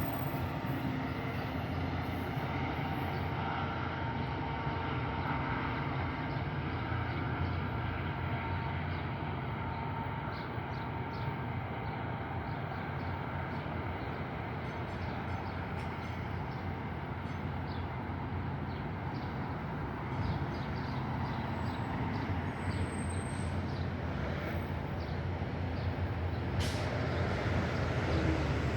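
A passenger train's steady rumble, with a single sharp clank near the end.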